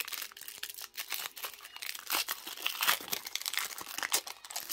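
Foil wrapper of a 1991 Upper Deck football card pack being torn open and crinkled in the hands: an irregular run of crackles and short rips.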